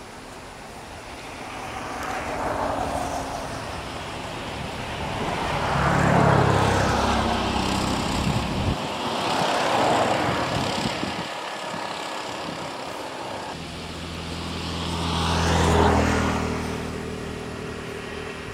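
Road traffic: about four vehicles pass one after another. Each one swells and then fades, and there is an engine hum at the two loudest passes, about six seconds in and near the end.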